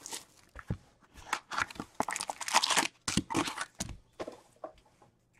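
Hockey card packaging being torn open and crinkled by hand: irregular bursts of tearing and crinkling wrapper, with sharp crackles and short pauses between them.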